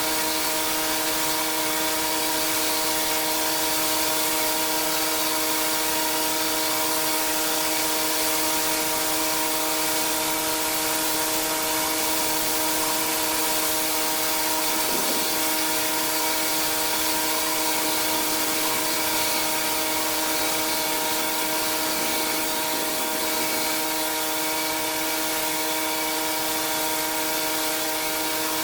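Pressure washer running steadily: the machine's hum with the hiss of high-pressure water spraying on a hard surface.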